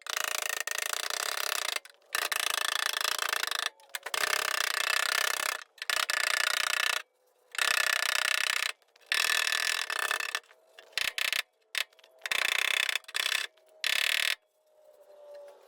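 A power tool run in about nine short bursts of one to two seconds each, with brief pauses between and a dense mechanical chatter, stopping a little before the end.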